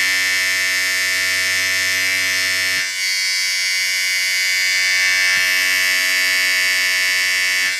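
Steady electric buzz of a small handheld motor-driven vibrating device pressed against a smartphone to shake it as a vibration test source. The tone shifts slightly about three seconds in.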